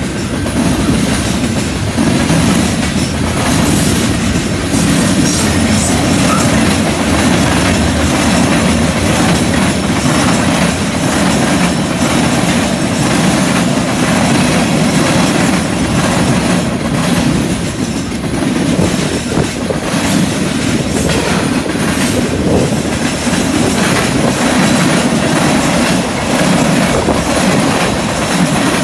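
Freight train tank cars rolling past at close range: a steady rumble and rattle of steel wheels on rail, with repeated clacks of wheels crossing rail joints.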